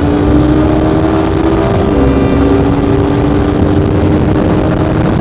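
Honda CBR300R's single-cylinder engine running steadily at speed, its pitch dipping slightly about two seconds in and then holding, with constant wind rush over it.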